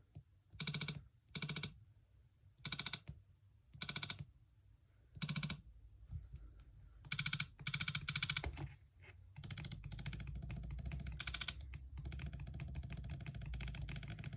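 An opened iPhone's Taptic Engine vibrating with a rattly buzz: first a series of short buzzes, then a steady buzz from about nine seconds in. The rattle comes from the Taptic Engine being loose in its mounting, the cause of the phone's loud vibration.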